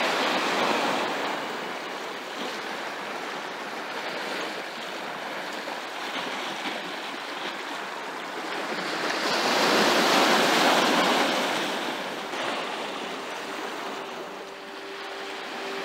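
Small sea waves washing in and breaking over a rocky, seaweed-covered shore, the surf swelling loudest at the start and again about ten seconds in, then easing off.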